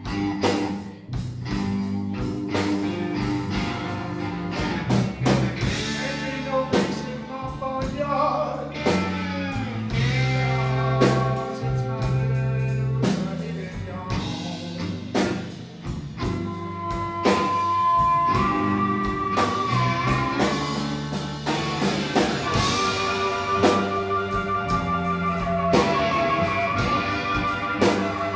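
Blues band playing live: an amplified harmonica solo with long held, slightly bending notes over electric guitar, bass guitar and drum kit.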